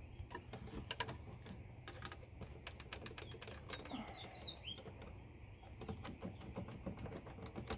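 Irregular light clicks and taps of hands handling wires and the plastic battery case of a cordless mower's lead-acid battery pack.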